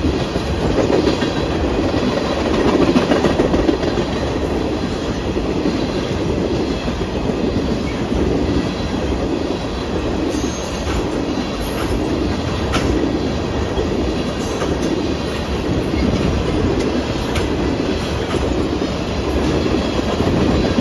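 Empty ethanol tank cars of a CN freight train rolling past, a steady rumble with the clickety-clack of wheels over the rail joints.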